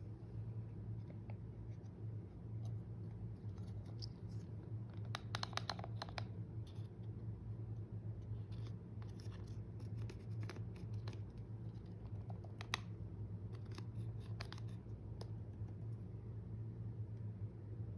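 Slime being mixed and squished by hand, giving scattered small clicks and crackles that come in little clusters, over a steady low hum.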